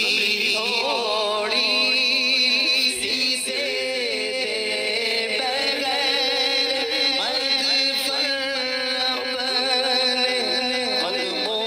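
A man singing a naat, an Urdu devotional poem, solo into a microphone, with long held notes that waver in pitch.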